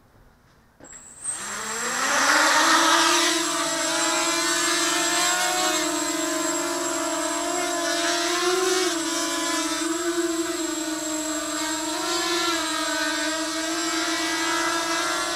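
Mini quadcopter's motors and propellers spinning up about a second in with a quickly rising whine, then a steady buzzing hover whose pitch wavers a little as the throttle shifts.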